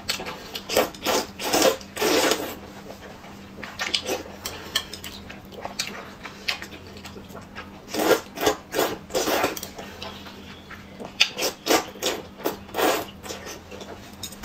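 Slurping of wide starch noodles in chili oil, coming in four clusters of quick slurps: near the start, about four seconds in, around eight to nine seconds, and again around eleven to thirteen seconds.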